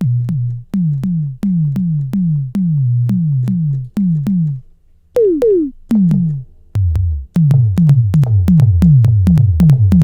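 Synthesized tom drum hits made from a sampled audio-feedback sine tone, struck in quick succession. The first few are a flat low tone; after that each hit drops in pitch like a tom, with two higher toms about five seconds in. From about two-thirds through, a deeper thump joins under the hits.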